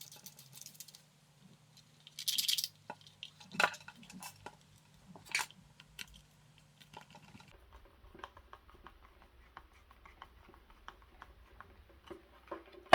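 Hands working on a power plug and its cable: a brief rustle about two seconds in, then scattered small clicks and taps of plastic and metal parts being handled.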